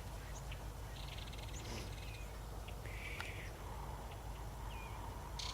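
Birds calling: a short, rapid rattling call about a second in, a chirp about three seconds in, a few thin whistled notes, and another rattle starting near the end.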